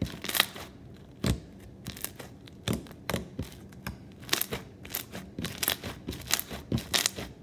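Thick bingzu slime packed with blue bingzu beads and foam beads being squeezed, stretched and pressed by hand, giving irregular sharp crunchy crackles and pops.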